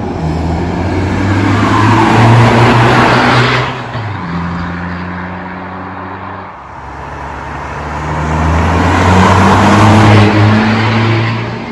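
Tuned 2.0-litre TDI diesel engine of a mk2 SEAT Leon under hard acceleration, twice: the engine and exhaust sound build to a loud peak about three seconds in and drop away suddenly, then build again to a second loud peak about ten seconds in before falling off.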